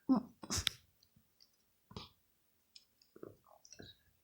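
Slime being stretched and worked in the hands to form a bubble: a scatter of short, wet clicks and squelches, the loudest two in the first second.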